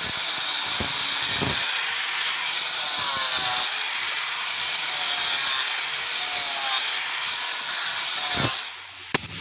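Power grinder working a steel sickle blade: a steady, high grinding hiss that stops near the end, followed by a couple of sharp clicks.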